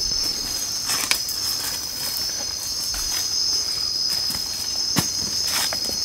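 Steady, high-pitched chorus of night insects in the forest. Over it come a few sharp clicks and crackles, footsteps and twigs snapping underfoot on the trail.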